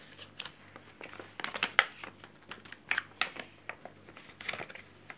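A folded glossy paper leaflet being unfolded and handled: a scatter of short, irregular paper crinkles and rustles.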